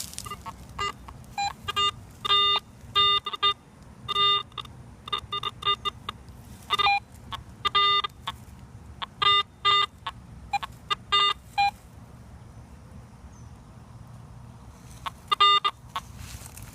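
Metal detector giving short electronic beeps as it is swept over the ground, in irregular clusters of tones. The beeps stop about 12 seconds in and return briefly near the end.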